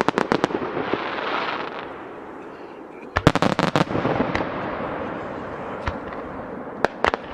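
Aerial fireworks bursting: a rapid string of sharp cracks at the start and another about three seconds in, with a few single pops near the end.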